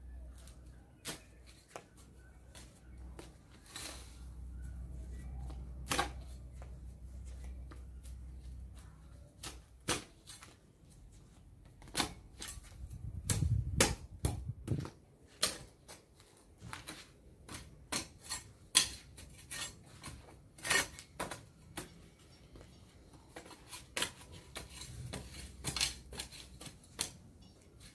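Long-handled flat-bladed lawn edger being pushed into turf and soil along a grass edge: irregular sharp crunches and scrapes, several a second at times, as the blade cuts through grass roots.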